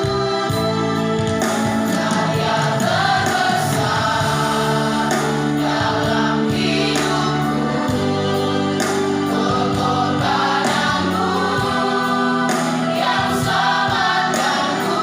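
A choir singing a gospel hymn over sustained accompaniment, with steady chords that change every second or two.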